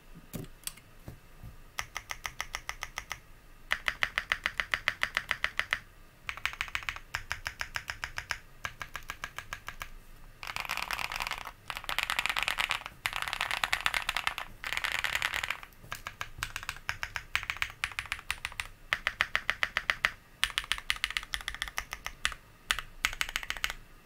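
Owlabs Link65 mechanical keyboard with lubed Wuque MM switches on an aluminium plate, in a fully foamed case, being typed on fast: bursts of rapid key clicks with short pauses between them. The typing is densest about halfway through.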